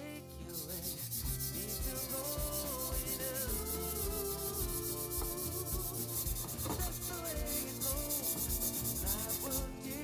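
Brisk scrubbing: a fast, even run of rasping strokes that pauses briefly near the end, over background music with a melody.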